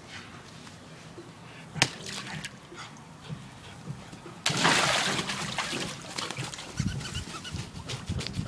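A short burst of splashing water about four and a half seconds in, fading over a second or so, with a single sharp knock a couple of seconds before it and a few soft thuds afterwards.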